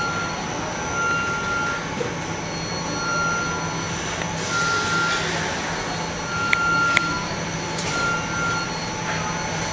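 Steady machine hum and hiss on an electronics assembly floor, with short high electronic beeps recurring every second or two and a couple of small clicks about two-thirds of the way through.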